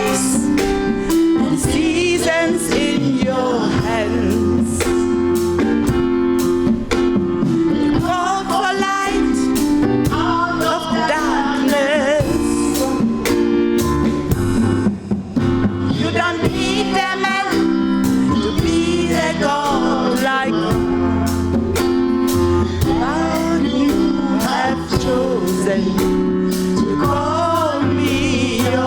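Live gospel music: singing over a band, with sustained chords and drums keeping a steady beat.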